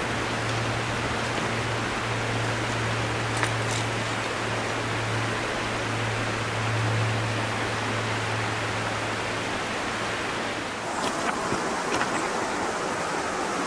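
Steady rushing noise, with a low hum under it that stops near the end and a few faint clicks.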